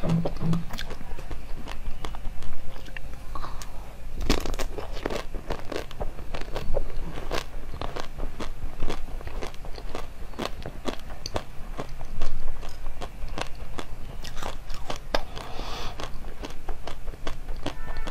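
A person biting into and chewing round purple coated treats close to a clip-on microphone: a dense run of sharp crunches and crackles with wet chewing, several louder crunches standing out.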